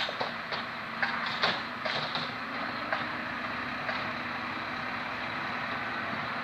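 Honeybee swarm buzzing in a steady hum, with a few brief louder sounds in the first two seconds.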